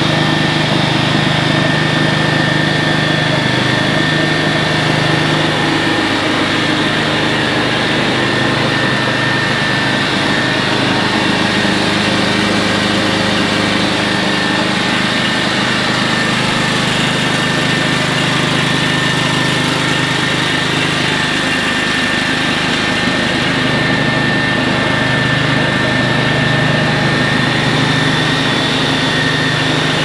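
Stand-on leaf blower's Vanguard engine running steadily, with a steady high whine over the engine note.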